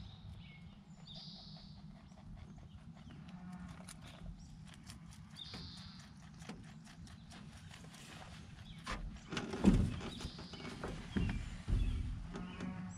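A rabbit chewing and nibbling food close to the microphone, a quick run of small crunching clicks. There are a few louder knocks about two-thirds of the way through and again near the end.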